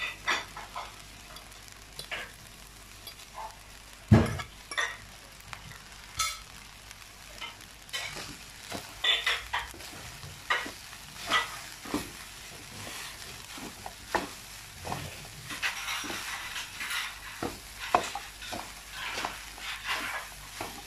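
Wooden spatula scraping and tossing fried rice and chopped cabbage in a wok over a light frying sizzle, with irregular scrapes and knocks against the pan. Cabbage is pushed off a plate with a fork at the start, and there is a louder knock about four seconds in.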